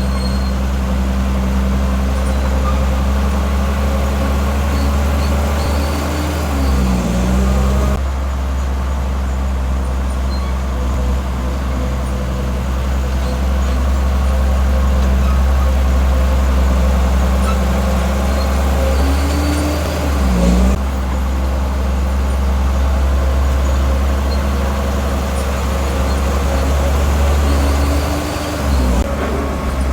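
Heavy diesel engine of a bulldozer running steadily and loudly under load. Its pitch dips and recovers three times, about 7, 20 and 29 seconds in.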